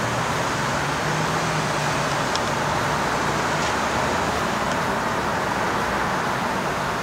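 Cars driving past close by on a road: a steady rush of tyre and engine noise, with a low engine hum through roughly the first half.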